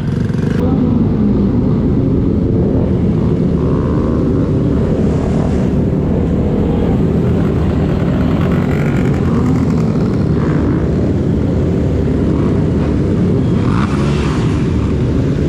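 Motorcycle being ridden: a steady, loud engine-and-road rumble, heavy in the low end.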